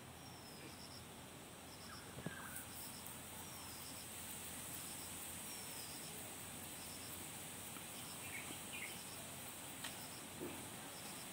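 Faint background with an insect's short, high chirp repeating every couple of seconds and a steady high hiss from about two seconds in, with a few soft ticks.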